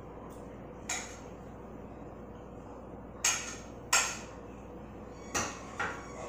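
A metal fork clinking against a metal cooking pot while greens are served out of it: five short, sharp clinks at uneven intervals.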